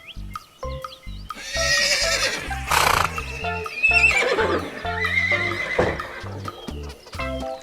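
Horse whinnying twice over background music, the second whinny falling in pitch, with a short noisy burst between the two calls.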